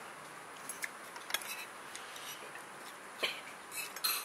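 Cutlery and dishes clinking on a dining table: a few scattered, sharp clinks over steady room noise.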